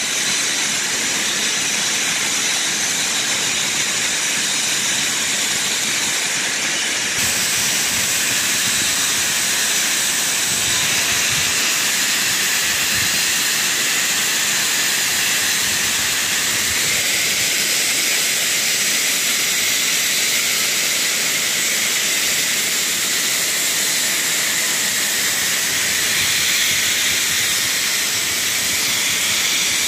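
Standing steam locomotive letting off steam: a loud, steady hiss that turns a little brighter about seven seconds in.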